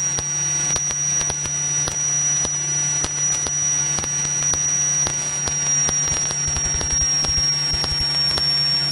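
Steady electrical hum with a thin high whine over it and constant crackling static, heard on a light aircraft's headset and radio audio feed while no one is transmitting.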